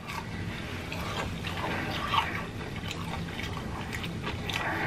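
Close-miked chewing of food, with many small wet mouth clicks and smacks over a steady low room hum; one slightly louder smack about two seconds in.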